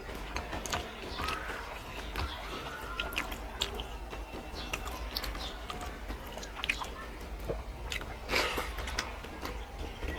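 A person chewing a mouthful of rice and curry, with many short wet clicks and smacks of the mouth.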